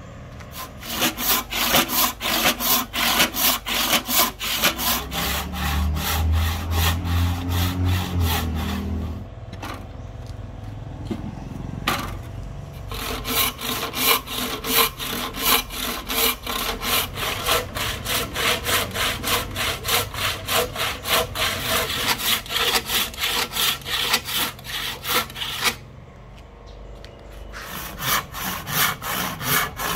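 A handsaw cutting through a rosewood axe-handle blank in quick, steady back-and-forth strokes. The sawing pauses briefly about 9 seconds in and again about 26 seconds in.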